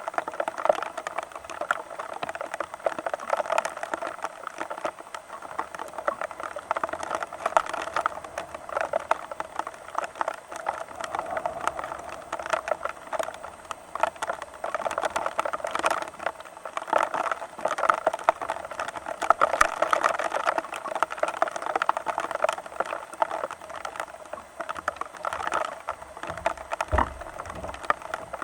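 Rain pattering in a dense, steady crackle of small drops on a nearby surface, with a brief low rumble near the end.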